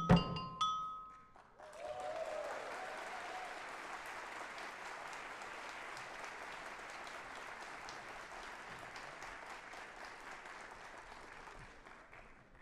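The last notes of a percussion piece ring out and stop, and after a brief pause an audience applauds for about ten seconds, the clapping fading away near the end.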